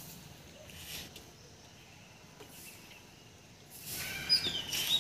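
Quiet outdoor background, then a bird starts chirping in short, high calls about four seconds in.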